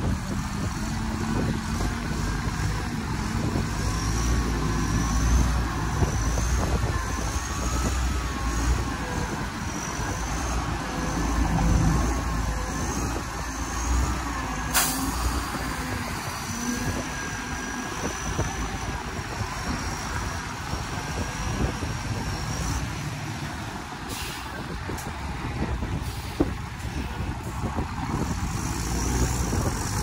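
Heavy diesel dump truck running with a steady low rumble while its hydraulic hoist tips the loaded bed, with a wavering high whine over it. The load of soil and rocks slides out, and there is one sharp knock about halfway through.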